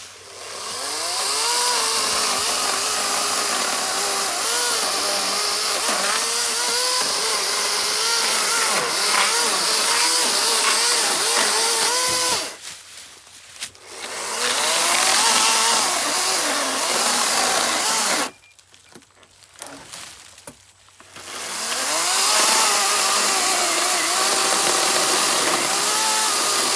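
Greenworks G-Max 16-inch battery-powered electric chainsaw cutting maple wood. Its motor pitch sags and recovers over and over as the chain bites into the wood. It stops twice, about twelve and eighteen seconds in, for a second or a few seconds, then runs up again.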